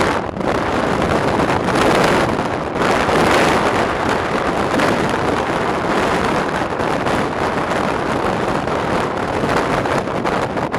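Wind rushing and buffeting over a microphone held out of the open window of a moving train carriage, with the train's running noise mixed in underneath.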